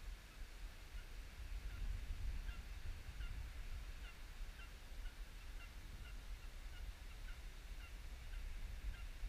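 A bird calling over and over in short, slightly curved calls, roughly one to two a second, over a steady low rumble of wind on the microphone.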